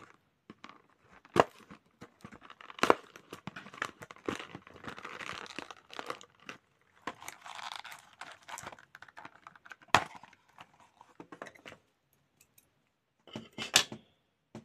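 Cardboard box being opened and handled by hand on a wooden tabletop: rustling and scraping of card, with several sharp knocks and taps.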